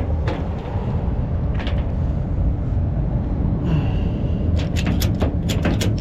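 Tow chains clanking and rattling as they are handled and put away, with a quick run of sharp metal clanks in the last second and a half, over the steady low rumble of an idling tow truck engine.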